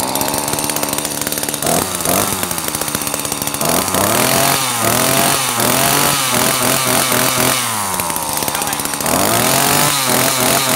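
Echo 28cc two-stroke chainsaw engine idling, then revved again and again with the throttle from about four seconds in. It drops back to idle for a moment before revving again near the end, running light and smooth.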